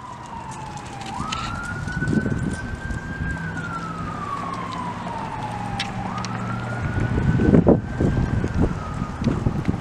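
Emergency vehicle siren in wail mode, its single tone rising quickly and then falling slowly, about two full cycles, over low rumbling background noise that swells about three-quarters of the way through.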